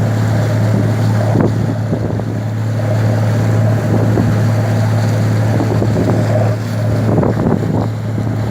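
Motorboat engine running with a steady low hum, with wind buffeting the microphone.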